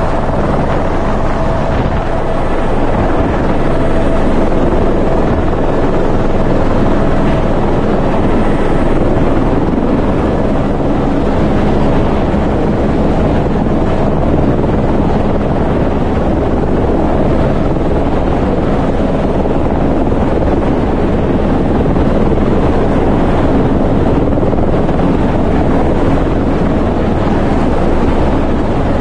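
Helicopter's engine and rotor running loud and steady in a low hover, heard through the open cabin door with heavy wind buffeting on the microphone.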